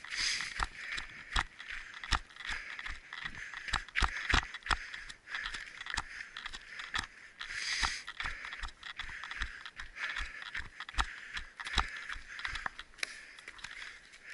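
Irregular thumps and knocks of a person moving on foot, a few a second and uneven, over a steady hiss.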